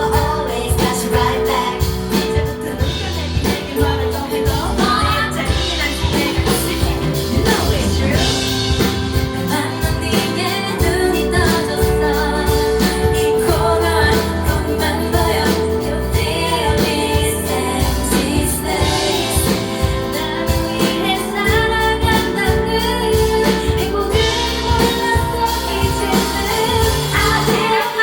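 Female singers performing a K-pop ballad live over a backing track, with sustained sung notes and a steady beat.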